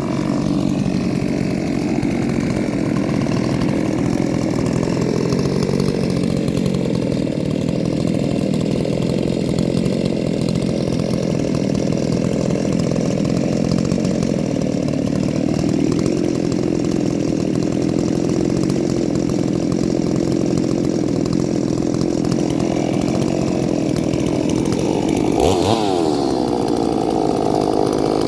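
Ported two-stroke chainsaw running steadily under load as it cuts through wood, with a sharp swing in engine pitch near the end.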